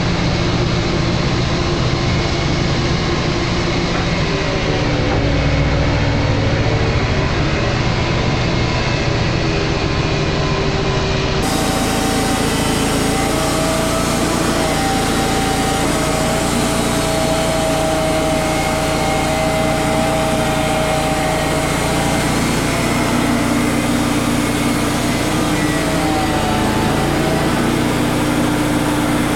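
Wood-Mizer LT35 portable band sawmill running steadily as it saws a cedar log, its engine note wavering slightly in pitch.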